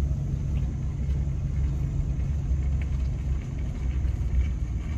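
Steady low rumble of a pickup truck's engine and drivetrain heard from inside the cab as it moves slowly while towing a travel trailer.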